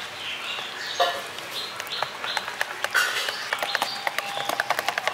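A wire whisk beating lentil-and-egg batter in a plastic bowl, with quick clicks and taps of the wires against the bowl, several a second from about halfway through. Birds chirp repeatedly in the background.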